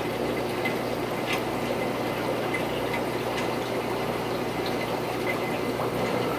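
Aquarium filtration running: steady bubbling and trickling water over a constant low electric pump hum, with scattered small pops and drips.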